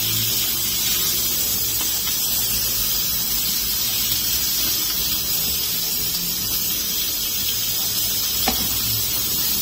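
Green peppers sizzling steadily in a hot frying pan, with the faint scrape and click of a wooden spoon pressing them about a second in and again near the end.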